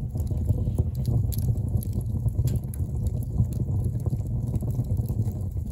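Logs burning in a wood stove: a steady low rumble of the fire's draft with a few faint crackles.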